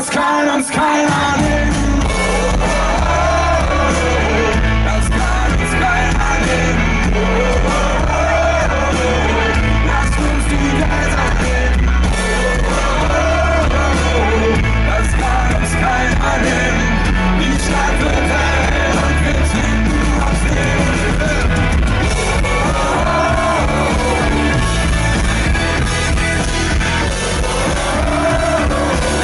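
Live rock band playing at full volume, with singing over a heavy bass and drum beat and a sung phrase repeating every few seconds.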